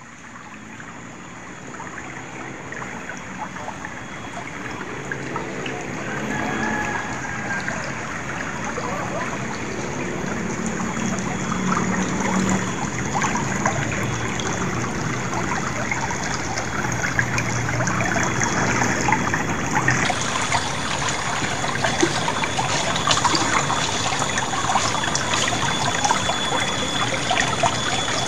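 Shallow stream running and trickling over stones, a steady rush that grows louder through the first half and turns brighter and splashier about two-thirds of the way in.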